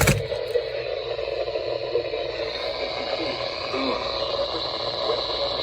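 Radio static: a steady hiss with faint humming tones underneath, opening with a couple of sharp clicks.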